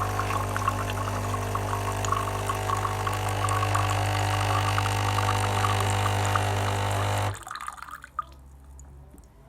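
Espresso machine's newly fitted vibratory pump running with a steady hum while water spits and pours through. The pump is drawing and delivering water normally. It cuts off suddenly about seven seconds in.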